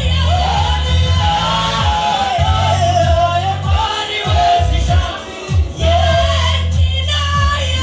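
A church congregation singing a gospel song together over a steady low musical accompaniment, with a short dip in the singing about five seconds in.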